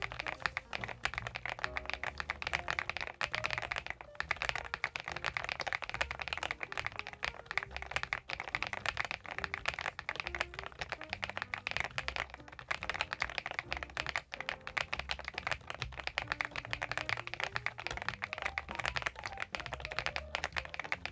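Continuous fast typing on a CIDOO ABM066 gasket-mount mechanical keyboard: a dense, unbroken run of key clacks.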